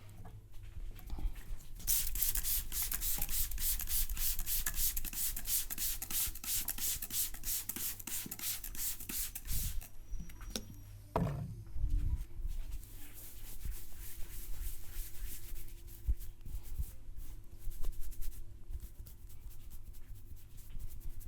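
Hands rubbing briskly over hair and skin in a barber's massage: fast, scratchy rubbing strokes that stop about ten seconds in, a dull thump soon after, then softer rubbing with a few sharp clicks.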